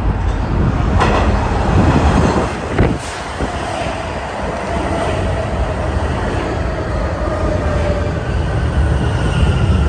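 New York City subway train pulling into the station with a heavy rumble, its motor whine falling slowly in pitch as it slows.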